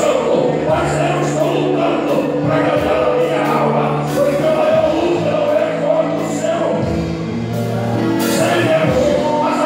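Gospel worship singing: a man singing into a microphone, with other voices joining in, over an amplified accompaniment of held bass notes that change every second or so.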